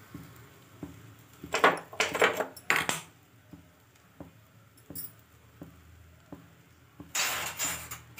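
Kitchen utensils clattering in two short bursts, about one and a half seconds in and again near the end. Underneath, a faint tick repeats about every three-quarters of a second.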